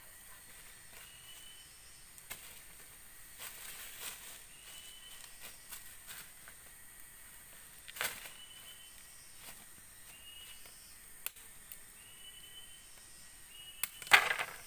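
A machete striking wood, a few sharp chops: one about eight seconds in and a louder pair near the end. A short rising call repeats every few seconds in the background.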